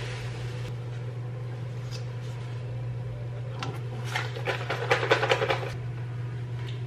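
Plastic protein-shake pouch crinkling and crackling in the hands for about two seconds, from roughly halfway through, over a steady low hum.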